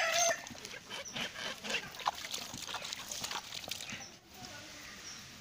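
Muddy water spurting and splashing out of the top of a tubewell pipe being sunk by hand, in a run of irregular wet splashes and knocks that dies away about four seconds in. A loud rooster crow ends right at the start.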